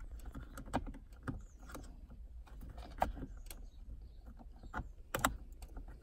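Scattered light clicks and knocks of metal and plastic parts as hands work the gear-shift linkage of an AIRTEC quick shifter, trying to clip it back over. The loudest knocks come about three seconds in and again near the end.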